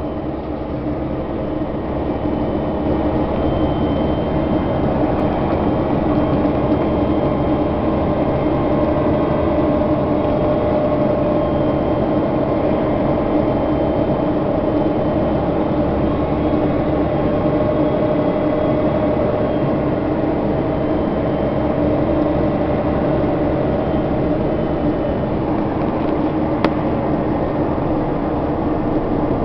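Steady engine drone and road noise of a military vehicle driving in a convoy, growing a little louder over the first couple of seconds. A single sharp click near the end.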